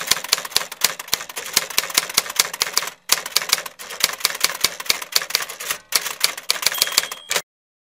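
Typing sound effect: a rapid, uneven run of sharp keystroke clicks that breaks off briefly twice and stops near the end.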